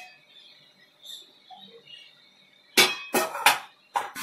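Metal clanks of an aluminium idli steamer pot and its lid being handled: a quiet stretch with faint small knocks, then four sharp clanks in quick succession in the second half.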